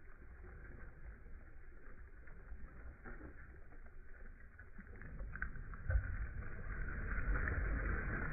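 Boat on open water: a steady rumble of wind and water noise with no clear engine tone, growing louder about five seconds in, with a single thump near six seconds.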